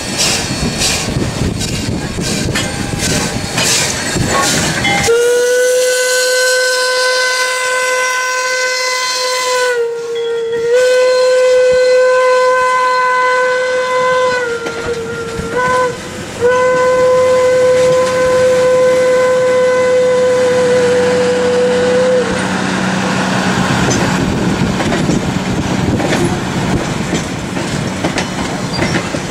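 A steam locomotive's whistle, Flagg Coal Co. No. 75, blows a single steady tone in long, long, short, long blasts, the last long one cutting off sharply. Under and after it, the passenger cars clatter and rumble past over the rail joints.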